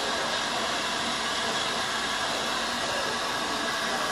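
Steady hiss of steam from the Flying Scotsman, an LNER Class A3 Pacific steam locomotive, standing with steam escaping at its front end.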